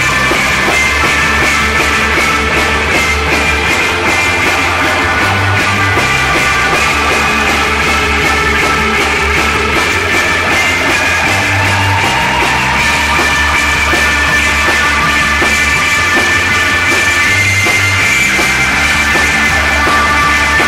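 Psychedelic rock music: a drum kit keeps a steady beat under moving bass notes and long, held guitar tones.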